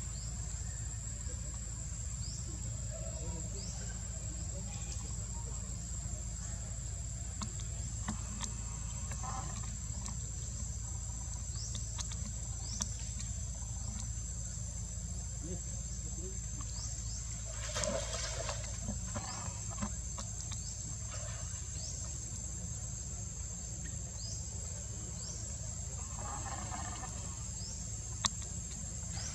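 Steady high-pitched drone of insects, with scattered faint short chirps and a low rumble underneath; a brief louder sound breaks in about eighteen seconds in.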